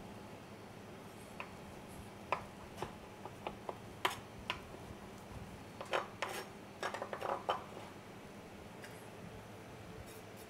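Chef's knife chopping feta on a plastic cutting board: scattered sharp knocks of the blade on the board, then a denser run of clicks and scrapes a few seconds later as the chopped cheese is swept up with the flat of the blade.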